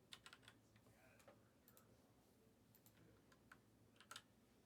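Faint, scattered clicks of a computer keyboard being typed on, a dozen or so separate keystrokes with a louder pair near the end.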